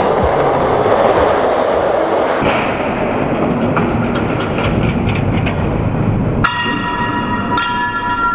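Skateboard wheels rolling on concrete, a steady grinding roll with small ticks over the cracks and joints. About two-thirds of the way in, two ringing bell-like strikes come in about a second apart and hang on.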